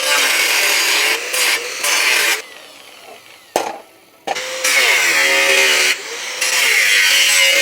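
Electric angle grinder cutting a 2 mm iron plate: the motor's whine wavers under load in two runs with a short pause between, and a sharp click sounds in the pause.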